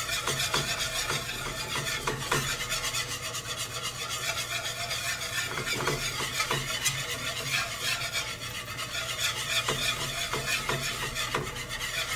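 Wire whisk stirring and scraping around a copper-coloured skillet in quick repeated strokes, with a light sizzle from the hot fat, as flour is whisked into melted shortening to make a roux.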